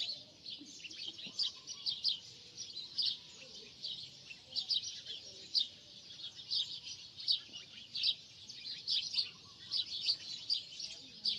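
Many small birds chirping, with quick high chirps overlapping one another without pause.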